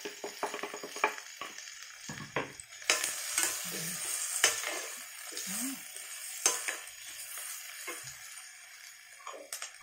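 Sliced bell peppers and other vegetables sizzling in a stainless steel pan as they are stir-fried, with a slotted metal spatula scraping and clacking against the pan. The sizzle grows louder from about three seconds in, then eases off toward the end.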